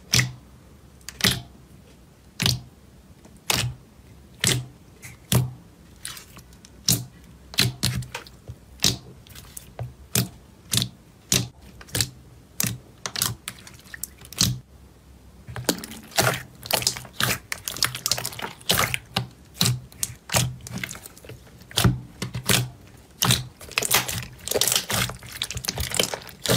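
Glossy slime being poked and squeezed by hand in a plastic tub, giving sharp wet clicks and pops. They come about once a second at first, then much faster and denser from about halfway through as the slime is kneaded with both hands.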